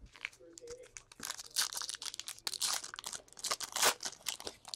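Foil trading-card pack wrapper being torn open and crinkled by hand, a dense run of crackling rustles.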